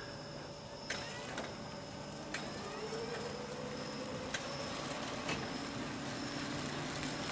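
Electric car's drive motor whining faintly as the car runs, its pitch rising about three seconds in and then holding steady over a low hum, with a few scattered clicks.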